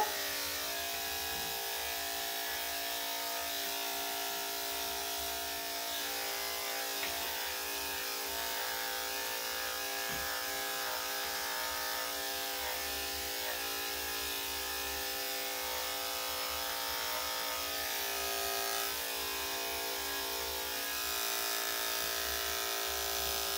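Electric dog grooming clippers with a #10 blade, running with a steady hum while shaving the dog's coat.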